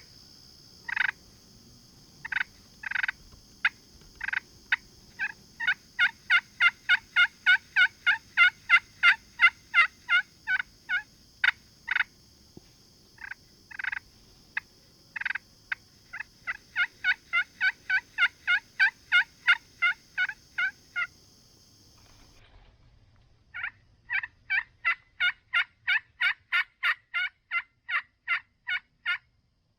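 Long series of turkey yelps, loud and close, about two notes a second, each note breaking from high to low, in three runs with short pauses between. A steady high insect drone runs behind them and stops suddenly about 22 seconds in.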